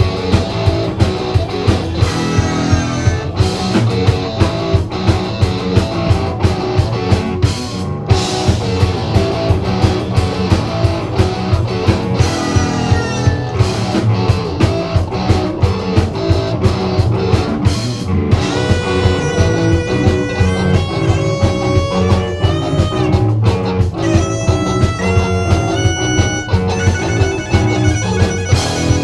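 Live band playing an instrumental: a drum kit keeps a steady beat under electric guitar chords, and about two-thirds of the way in a sustained, wavering lead melody enters above them, as an electric violin is seen playing.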